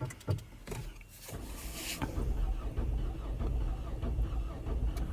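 Car engine cranking on its starter motor without firing; the car won't start. A few clicks come first, then a steady cranking churn from about a second in.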